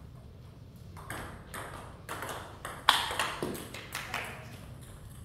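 Table tennis ball clicking back and forth off rackets and table during a rally, a stroke about every half second, with the sharpest hit about three seconds in. After it come a few fading ticks as the ball bounces away across the wooden floor.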